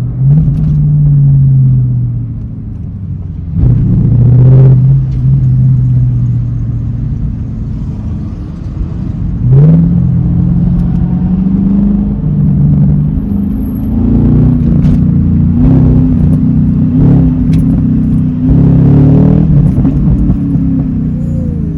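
Tuned Camaro SS's 6.2-litre L99 V8 accelerating hard several times, the engine note rising with each pull and dropping back between them. There are a few sharp pops in the second half.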